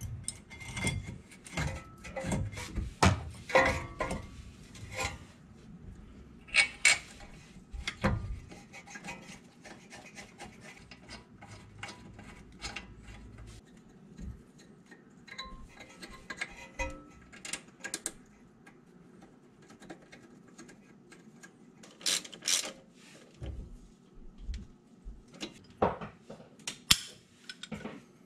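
Hand tools and metal suspension parts clinking, knocking and rubbing on a truck's front steering knuckle and brake caliper as bolts are fitted, in irregular clicks and knocks. Near the end a socket wrench with an extension is worked on the knuckle bolts.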